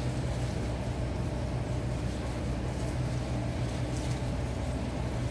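Aquarium aeration: a steady low hum with air bubbling up an airlift tube in the tank.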